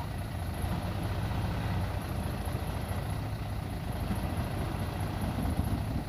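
Nissan Diesel (UD) dump truck's diesel engine running steadily while its hydraulic hoist tips up the loaded bed, a little louder near the end.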